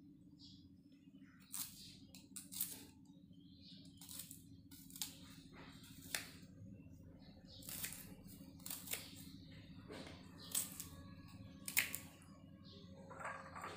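Kitchen knife cutting shallots and garlic on a wooden cutting board: sharp, irregular knocks, about one a second, over a steady low hum.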